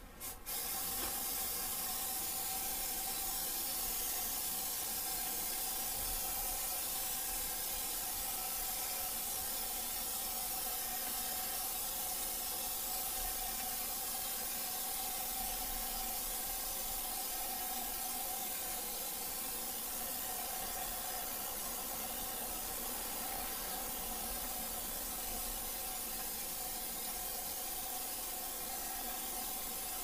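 Aerosol spray can held down in a long, unbroken hiss with a faint steady whistle in it, spraying sealant into an opened ceiling cavity.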